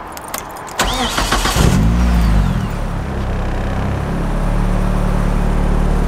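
Nissan S13's four-cylinder engine cranked on the starter, catching about a second later with a brief rev flare, then settling into a steady idle. It starts and runs with the idle air control valve reconnected.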